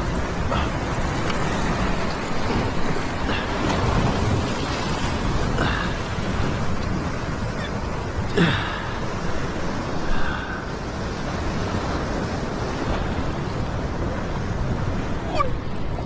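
Heavy surf surging and breaking against a rock ledge: a steady rush of foaming seawater.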